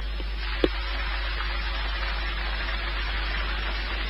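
Steady radio static hiss on an air traffic control frequency between transmissions, with one short click about half a second in.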